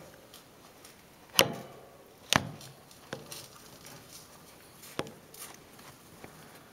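A hamster bathing in sand in a ceramic bowl: soft scuffling in the sand, broken by sharp knocks, two loud ones about a second apart near the start and a few fainter ones later.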